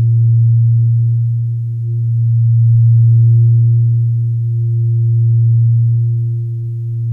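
Sustained low drone of relaxation music: one deep steady tone with a fainter higher tone above it, swelling and fading slowly about every two and a half seconds.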